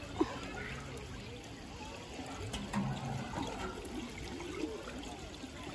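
Water trickling and running steadily through a splash-park water-play channel, with a brief knock just after the start.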